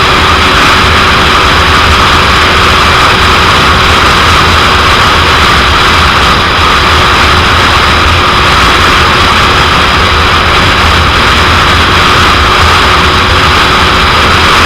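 Heavy, steady wind noise buffeting the microphone of a 2001 Suzuki GSX-R750 at riding speed, loud and unbroken, with a faint steady engine note underneath.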